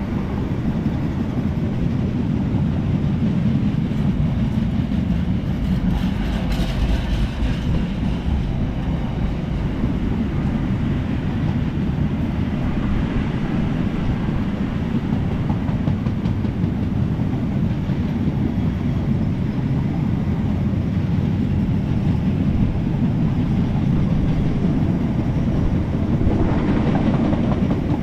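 Container freight train's wagons rolling past close by: a continuous heavy rumble of steel wheels on the rails.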